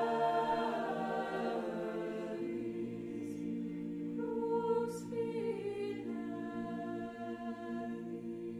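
Choir singing slow, long-held chords, with soft 's' consonants hissing about three and five seconds in.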